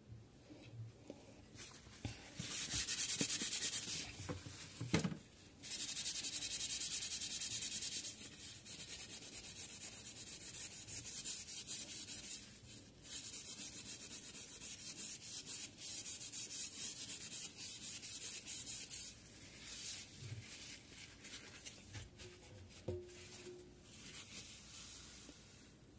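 Microfibre dish cloth with cleaning paste scrubbing the grimy metal rim of a frying-pan lid: a rough rubbing hiss, loudest in two long strokes within the first eight seconds, then lighter and uneven, dying down near the end.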